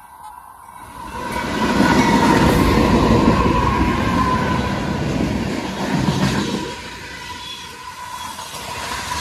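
CSX freight train passing close by: its two diesel locomotives go by loudly from about a second in to about seven seconds in, then the freight cars roll past. A grade-crossing warning bell rings steadily throughout.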